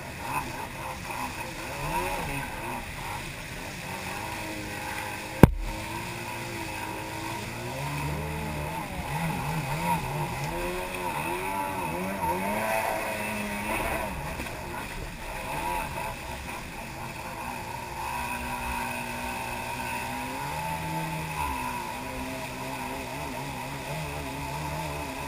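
Jet ski engine running and revving up and down as the craft crosses choppy boat wake, over the rush of water. A single sharp knock about five and a half seconds in is the loudest moment.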